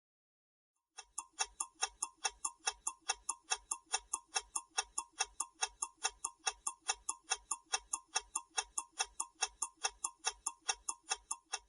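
Countdown-timer sound effect: a clock ticking evenly about four times a second, starting about a second in and running for roughly ten seconds.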